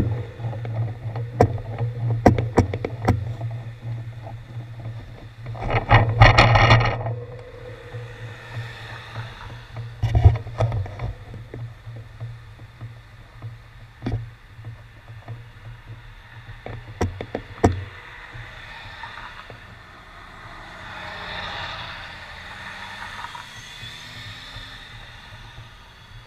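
Road traffic at an intersection: a steady low engine hum that stops about three quarters of the way through, with scattered clicks and knocks and a loud short rush of noise about six seconds in. Near the end a car's tyre and engine noise swells and fades as it passes.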